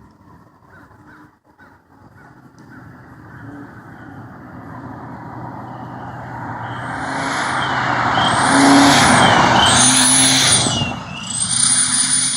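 A 4-cylinder Mazda 626 with a turbo whistle stuck in its exhaust driving past. Engine and road noise grow steadily louder as it approaches. From about seven seconds in, a high shrill whistle from the exhaust rises and falls in pitch three times, then holds a steady pitch near the end.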